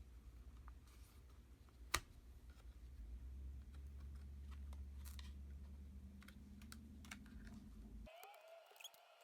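Faint clicks and taps of small hard parts being handled as a new battery is fitted into an opened MacBook Air, with one sharper click about two seconds in. A low steady hum underneath stops abruptly near the end.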